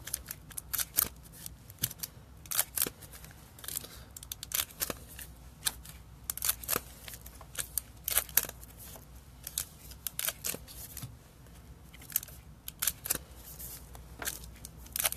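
Baseball card packs being opened and the cards handled: a quick, irregular run of sharp crinkles and clicks from the wrappers and cards.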